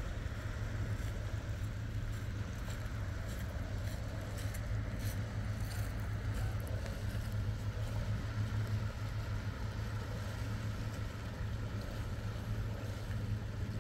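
Sailing yacht's inboard engine running steadily as it motors along under power, a low drone.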